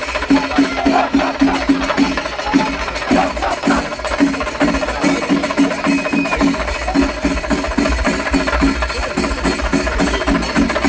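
Rhythmic percussion music with a fast, steady beat of about three to four strokes a second.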